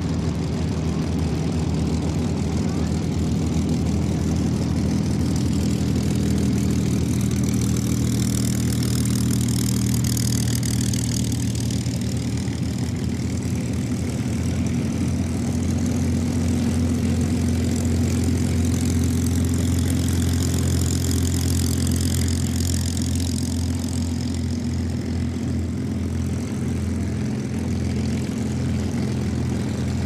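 P-51 Mustangs' Packard Merlin V-12 engines running at low taxiing power, a steady deep propeller-engine rumble, with a swishing shift in tone as an aircraft rolls past.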